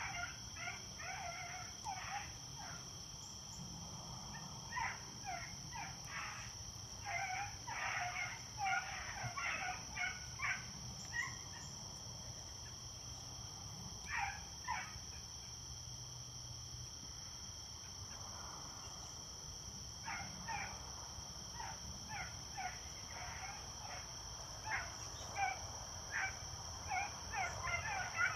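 A pack of beagles baying at a distance while running a rabbit: bursts of short, yelping barks with a lull partway through before the pack picks up again.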